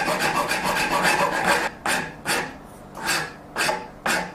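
File side of a combination rasp and file stroked by hand over a horn nock overlay on a wooden bow tip, rounding and shaping the horn. Rapid short scraping strokes for about a second and a half, then slower, separate strokes about two a second.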